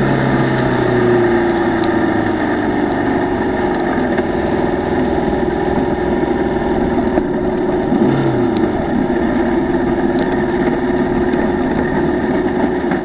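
Formula Vee racing car's air-cooled Volkswagen flat-four engine running hard at racing speed, heard from the car itself through a waterproof camera case, with a short change in its note about eight seconds in.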